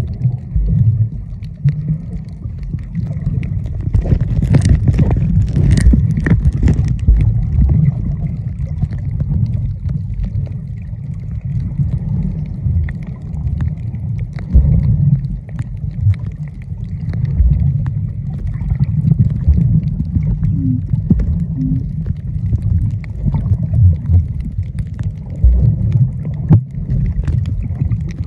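Muffled low rumble of water moving against a camera held underwater, with a cluster of sharp clicks about four to seven seconds in.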